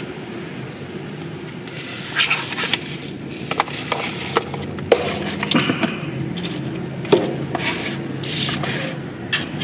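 Paper leaflet and cardboard flashlight box handled: rustling and scraping in bouts, with a few sharp clicks and light knocks.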